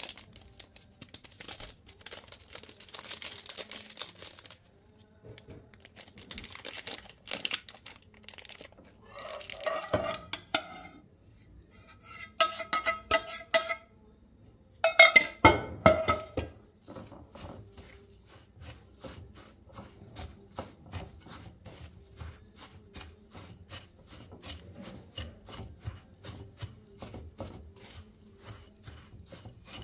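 Silicone spatula stirring and scraping dry biscuit crumbs around a glass bowl in quick, even strokes through the second half. Before that a paper packet crinkles as cocoa powder is shaken out, then a metal spoon rings against the glass bowl in three short bursts, the loudest sounds here.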